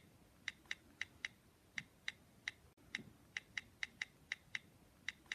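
Smartphone on-screen keyboard clicks: a short, quiet tick with each keypress as a text message is typed, about three a second in an uneven rhythm.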